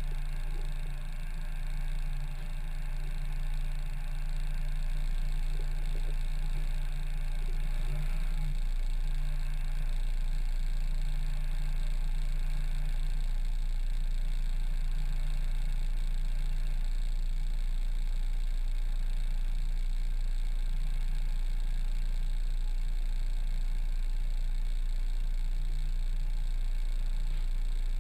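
A race hatchback's engine idling steadily while the car sits stationary, heard from inside the cabin.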